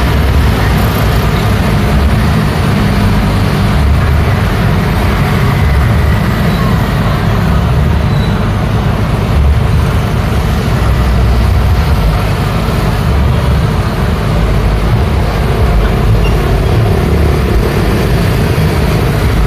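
Steady city street traffic: a continuous stream of motor scooters and motorcycles passing, with an occasional car, making an unbroken engine-and-tyre rumble that is heaviest in the low end.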